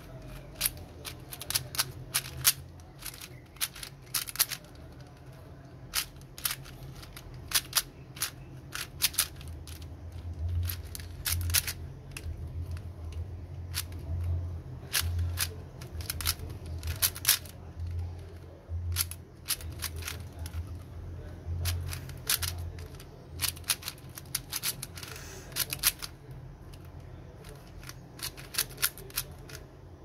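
Plastic 4x4 speed cube being turned by hand: its layers snap round in quick, irregular runs of sharp clicks, with short pauses between moves.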